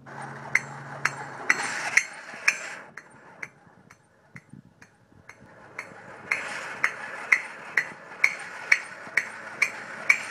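Vintage battery-operated Jolly Chimp toy monkey clashing its small brass cymbals together about twice a second, a steady metallic clinking over a noisy mechanical background. The clashes go softer for a few seconds in the middle and come back louder about six seconds in.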